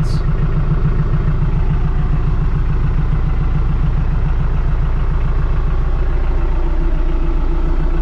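TYM T474 tractor's diesel engine idling steadily, heard from inside the closed cab, with an even low pulsing rumble. It is warming up at idle after a cold start.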